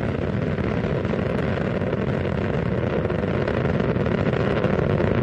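Steady rumble and rush of Space Shuttle Atlantis's rocket motors during ascent, with the solid rocket boosters and main engines burning, growing slightly louder toward the end.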